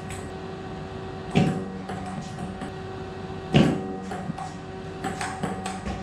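Table tennis ball clicking off paddles and the table in a rally, with two louder thumps about a second and a half and three and a half seconds in and a quick run of clicks near the end, over a steady electrical hum.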